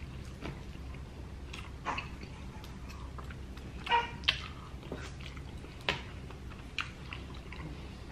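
Quiet eating: forks clicking on plates and chewing, broken about four seconds in by a baby's brief high-pitched squeal, with smaller squeaks around two and six seconds.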